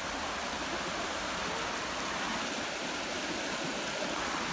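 A rocky mountain stream rushing over stones in shallow rapids: a steady, even rush of water.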